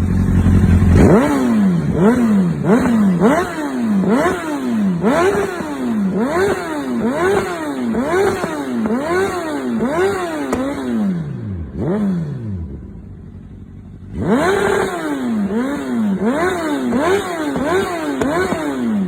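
Honda CBR1000RR SC57's inline-four engine through an aftermarket titanium race exhaust, being blipped again and again while standing still. Each blip is a quick rise and fall in pitch, about one every three-quarters of a second. It settles back for about two seconds two-thirds of the way through, then the blipping resumes.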